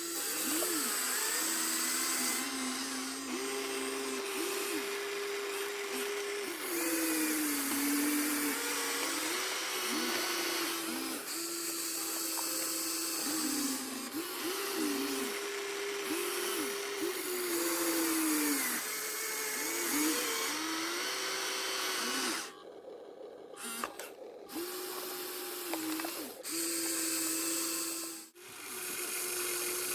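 Small electric motors of RC construction models (excavator and trucks) whining as they work, the pitch stepping up and down as the motors speed up, slow and change direction, with brief drops out about two-thirds of the way through and again near the end.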